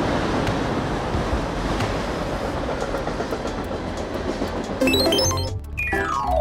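Freight train rolling along the track: a steady rumbling noise with faint wheel clicks. Near the end a short musical jingle plays, a quick rising run of chime notes and then a falling glide of notes.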